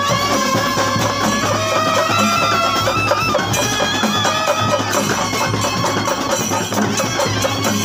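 Live street band of clarinets and trumpets playing a melody together over chenda drums beaten with sticks.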